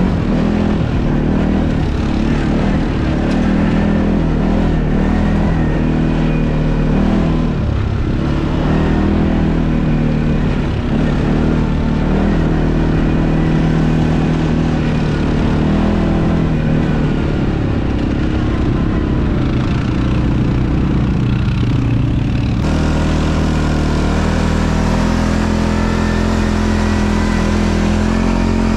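ATV engine running under way, its pitch rising and falling with the throttle, with a sudden change in tone about three-quarters of the way through.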